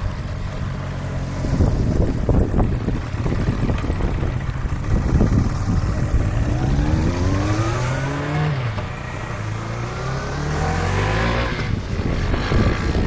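Motorcycles, a Kawasaki Zephyr 550 and a KTM Duke 390, riding past. One engine note climbs as a bike accelerates, drops back once about halfway through, then climbs again before fading, with wind buffeting the microphone.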